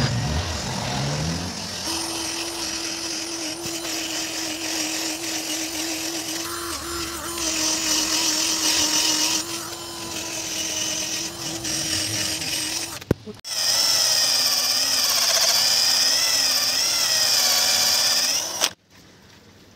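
Cordless drill spinning a foam polishing pad against a plastic headlight lens with polishing paste, giving a steady motor whine. About thirteen seconds in, the sound cuts abruptly to a higher, wavering drill whine, which stops shortly before the end.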